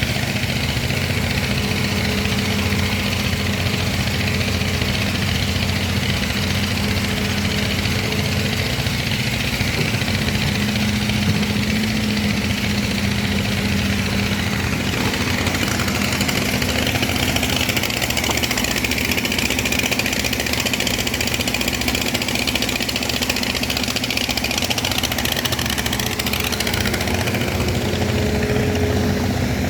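Excavator's diesel engine running steadily, with a constant low drone and a higher hiss that swells a little midway.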